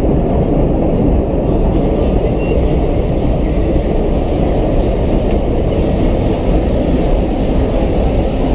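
Vintage R1-9 subway car running along the track, heard from inside the car: a loud, steady rumble of wheels and running gear.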